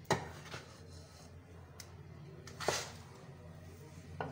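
Dishes knocking: one sharp knock at the start, another about two and a half seconds in, and a lighter one near the end, over a low steady hum.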